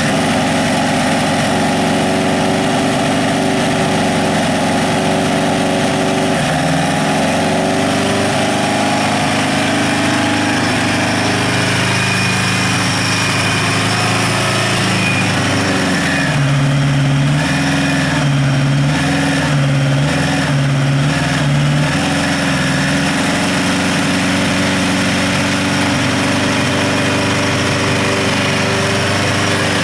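Pre-war racing car's four-cylinder engine idling unevenly, then blipped about five times in quick succession around two-thirds of the way through, each rev rising and dropping back, before it returns to idle.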